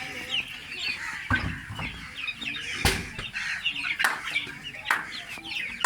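Desi chicks peeping continuously in short, falling, high-pitched cheeps. Several sharp knocks cut through, the loudest a little before halfway.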